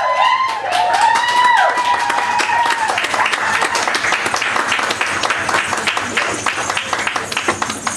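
Audience clapping and cheering, with a high voice holding a long cry over the first three seconds, then dense applause.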